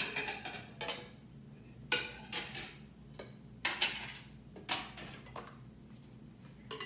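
Dishes and cutlery clinking and clattering as they are handled and put away, a dozen or so sharp clinks and knocks at uneven intervals, some ringing briefly.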